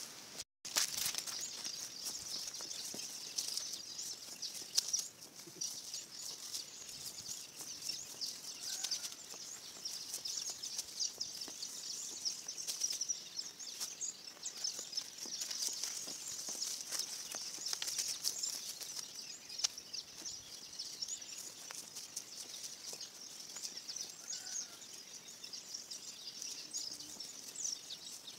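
Dry peanut plants rustling and crackling as they are pulled up by hand from dry soil, with many short clicks and snaps, over a steady high-pitched background chorus.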